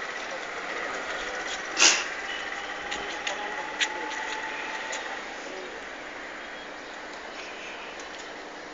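Steady outdoor background noise over a town, with one short, loud noise about two seconds in and a few faint clicks.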